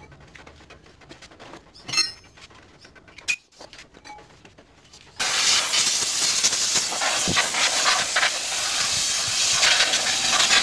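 A handheld spray nozzle blasting the rear drum-brake assembly clean, a loud steady hiss that starts suddenly about five seconds in. Before it there are a few light clicks and knocks of tools.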